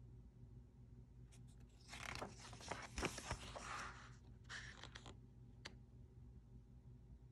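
A large paper page of a hardcover picture book being turned: a rustling swish of about two seconds with a few crisp crackles in it, followed by a couple of faint ticks as the page settles.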